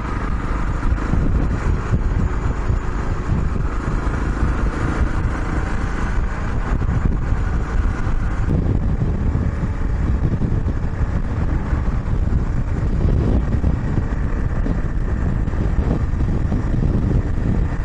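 Honda CRF250 Rally's single-cylinder engine running at road speed while riding, heard under heavy wind and road noise on the camera's microphone.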